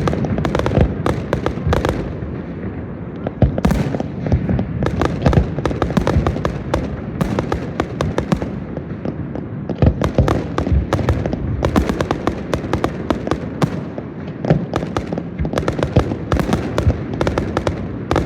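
Large fireworks display: dense, rapid volleys of shell bursts and crackling bangs, going on almost without a break.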